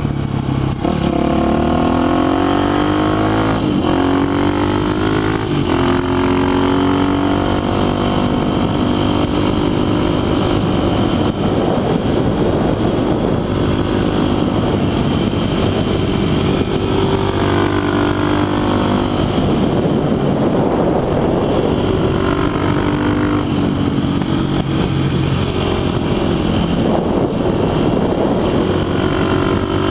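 Motorcycle engine pulling hard through the gears, its pitch climbing and then dropping at each upshift several times, over a steady rush of wind noise.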